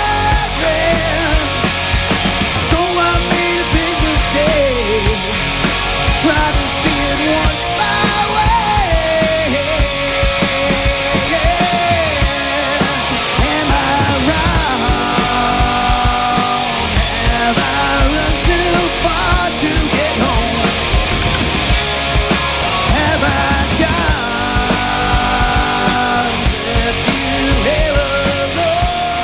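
Rock band playing a loud instrumental passage: a melodic lead line bending and sliding in pitch over full guitars, bass and drums.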